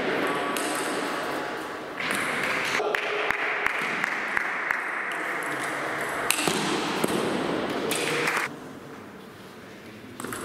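Table tennis rally: the celluloid ball clicking sharply back and forth off the players' rubber bats and the table, many quick knocks in a row, over a steady background noise that drops away about eight and a half seconds in.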